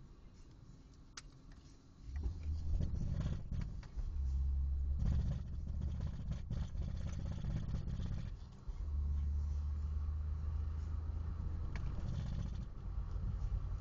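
1993 BMW E36 under way, heard as a low rumble and drone that sets in about two seconds in, with scattered thumps. The level dips briefly twice before the drone returns. This is the knocking and vibration the owner cannot trace, which he says feels like a wheel and comes on after 2–3 thousand rpm in any gear.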